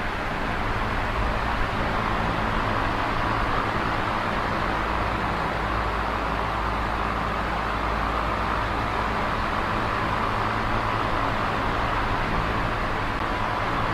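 Small electric oscillating fan running steadily: an even rush of air over a low motor hum.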